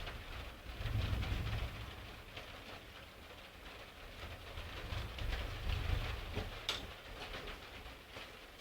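Steady rain falling in a heavy thunderstorm, with low rumbles swelling about a second in and again around five seconds in, and a sharp tick near the end.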